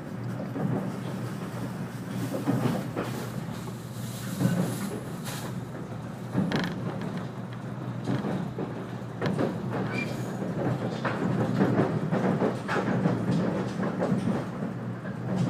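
A 485-series electric train running at speed, heard inside the passenger car: a steady low rumble of wheels on rail with irregular sharp clacks every second or so.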